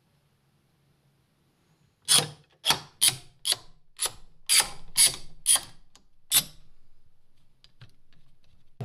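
A run of nine sharp mechanical clicks, about two a second, followed by a few faint ticks.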